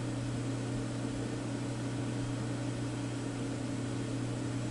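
Steady low electrical hum over a constant hiss, with no distinct event.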